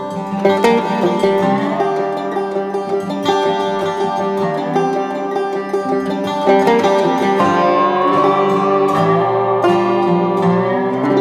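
Background music played on plucked string instruments, a run of picked notes with a sliding note about seven and a half seconds in.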